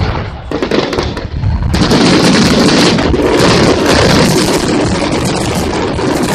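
Fireworks finale: a dense barrage of aerial shells bursting and crackling in rapid succession, the bursts running together without a break from about two seconds in.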